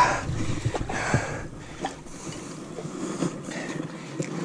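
Wind buffeting the microphone as a rushing noise that swells in gusts in the first second and then settles, with a few light clicks.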